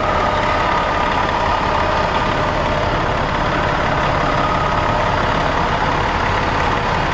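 Diesel engine of a Van Hool coach bus idling steadily, a low rumble with a steady whine over it.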